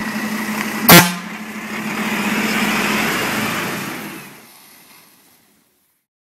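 MAN fire engine's diesel idling, with one short, very loud horn toot about a second in. The engine noise then swells for a couple of seconds, as when the truck pulls away, and fades out.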